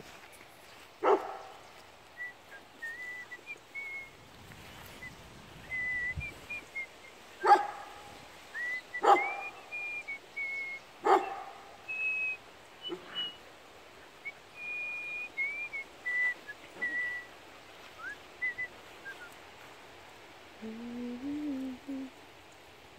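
Puppies whimpering in thin, high-pitched whines on and off, broken by about five short sharp barks or yips. A lower, wavering whine comes near the end.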